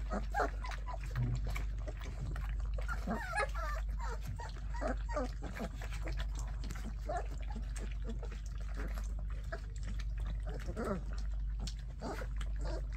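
Young puppies making short, high whimpers and squeaks while lapping and slurping milk from a bowl, with wet little clicks throughout.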